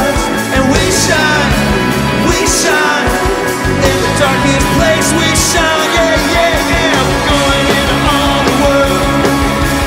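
Rock song with a sung vocal and a steady beat, used as background music.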